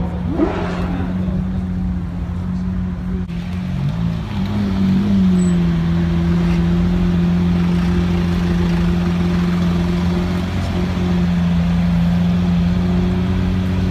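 Engine of a white Lamborghini supercar running at low revs as it creeps out at walking pace: a steady drone that wavers and briefly rises and falls in pitch about four to five seconds in, then settles.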